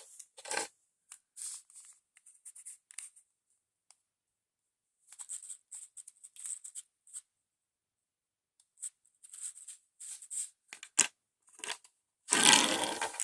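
Toy packaging being handled: scattered short crinkles and clicks with gaps between them, then a loud tear of the wrapping lasting about a second near the end.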